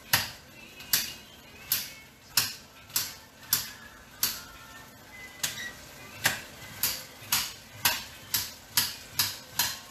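Knife slicing ripe plantain into diagonal pieces: a run of sharp knocks as each cut meets the cutting surface, about one every two-thirds of a second at first and quickening toward the end.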